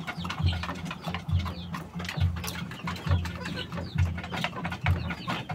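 A gamecock pecking at food in a plastic dish: many short clicks, with low pulses about twice a second and small high chirps throughout.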